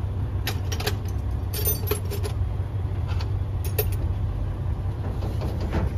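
Light metallic clinks and taps from tools and truck parts being handled, a few at a time, over a steady low rumble.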